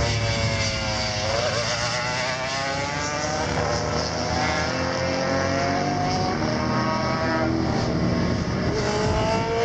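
Racing motorcycles passing in succession. Engine pitch drops about a second in as a bike slows for the corner, then climbs steadily as bikes accelerate away, with another rising run near the end.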